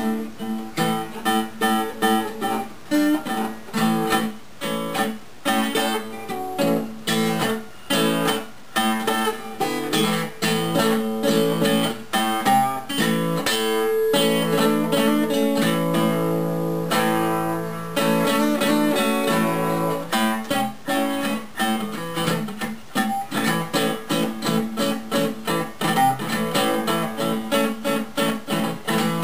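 Gibson L-48 acoustic archtop guitar played freely, with quickly picked notes and strummed chords and a few held chords left ringing about halfway through.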